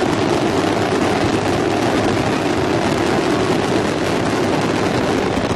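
A fireworks display in full barrage: a dense, continuous rumble and crackle of many shells bursting together, running steadily.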